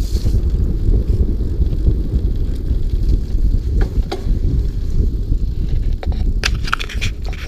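Mountain bike rolling along a damp dirt trail: wind buffeting the microphone over a steady tyre rumble, with a couple of sharp clicks about four seconds in and a cluster of clicks and rattles near the end.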